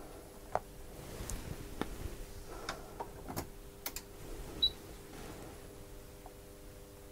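Multimeter test probes and leads being handled on a circuit board: small scattered clicks and knocks, with one short high electronic beep about four and a half seconds in. A faint steady electrical hum runs underneath.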